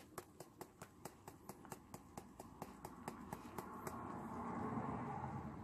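Spark igniter of a caravan gas hob clicking rapidly, about five clicks a second, then the burner catching: a rushing gas flame builds up and the clicking stops about four seconds in.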